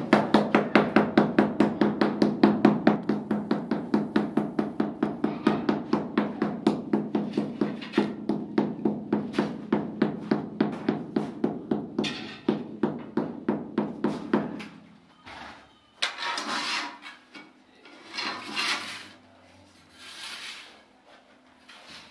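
Ceramic floor tile being tapped down into its sand bed, a rapid, even run of knocks at about four a second with a short hollow ring to each. The knocks stop about two-thirds of the way in, and a few rasping scrapes follow as sand is drawn level with a spirit level.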